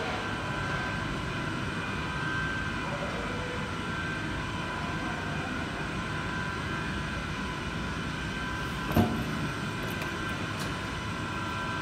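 Steel coil slitting line running, a steady mechanical hum with a thin whine from the slitter and recoiler drives. A single metallic clank about nine seconds in.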